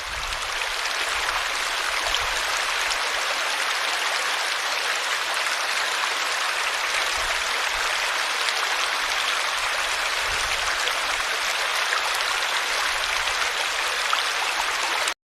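Steady rush of falling, tumbling water. It swells up over the first second and cuts off suddenly near the end.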